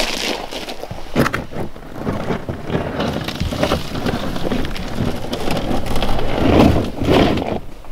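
Boots crunching on a gravel shore, and a wooden canoe set down and turned over on the stones, its hull scraping and knocking on the gravel. There is a sharp knock about a second in, and the scraping is loudest near the end.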